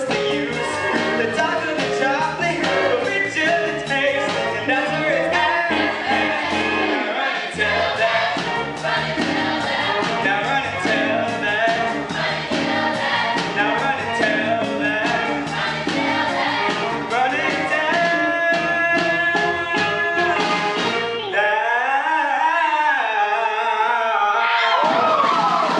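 Live theatre pit band and a chorus of cast voices performing an upbeat song with a steady beat. About 21 seconds in, the drums and bass drop out and the voices hold a long, wavering sung line before the band comes back in near the end.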